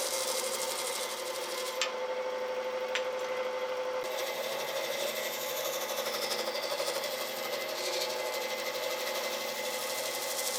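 Electric power tool running steadily with a fast, even buzz, with two short clicks about two and three seconds in.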